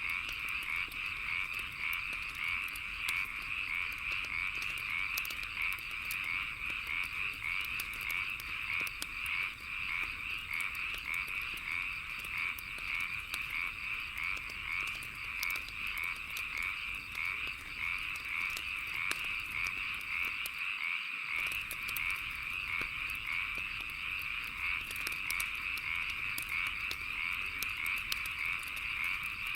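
A dense frog chorus croaking without pause, a fast pulsing trill, with scattered small pops of a crackling wood fire over it.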